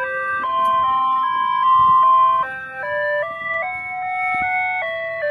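Electronic ice-cream-vendor jingle played from a melody alarm fitted to an excavator: a tune of stepped notes, changing every third to half second, over a low engine rumble.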